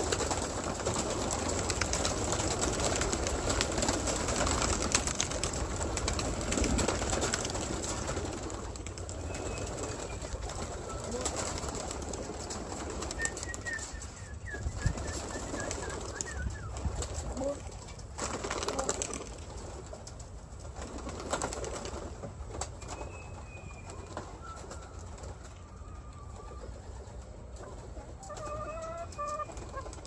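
A flock of pigeons flapping out of their loft, a dense clatter of many wings for the first several seconds that thins to scattered wingbeats. A few short chirping bird calls come in the second half, most of them near the end.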